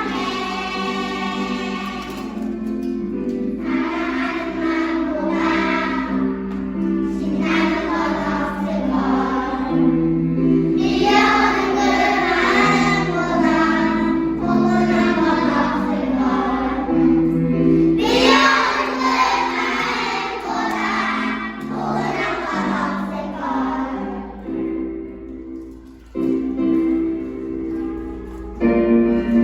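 Choir of six-year-old children singing a song together over instrumental accompaniment. The voices thin out and the music dips briefly near the end before resuming.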